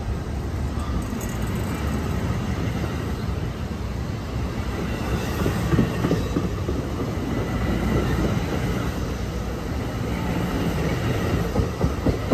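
New Jersey Transit MultiLevel bilevel coaches passing close at speed: a steady rumble and rush of steel wheels on rail, with a few scattered clacks.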